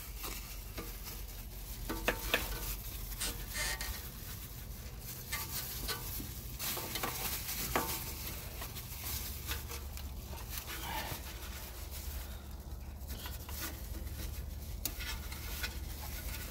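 Scattered light clicks and rubbing as hands work loose the brake hose and wheel-sensor wiring from their clips and brackets at the front brake.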